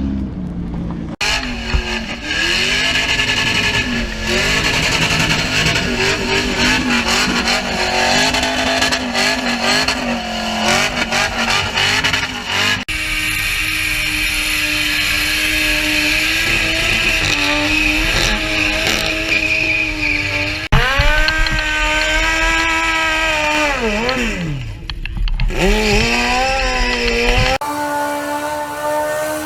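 A burnout car's engine revving hard at high rpm with the tyres spinning and squealing, heard across several abrupt cuts. About two-thirds of the way through, the revs fall away sharply and then climb again.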